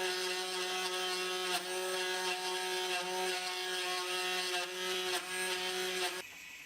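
Router spindle on a homemade CNC machine running at a steady high speed with an even hum, cutting off suddenly near the end.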